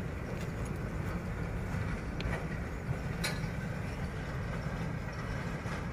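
Diesel engine of the 1,000 hp GM-06 locomotive running as the train approaches, a steady low rumble.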